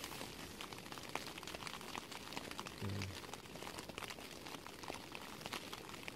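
Backpacking gas canister stove burning under a pot of water, a steady soft hiss with light irregular ticking and crackling over it.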